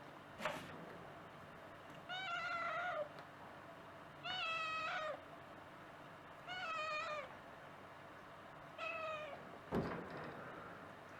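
American Curl kitten meowing four times, each call under a second long, a few seconds apart. A single sharp thump near the end.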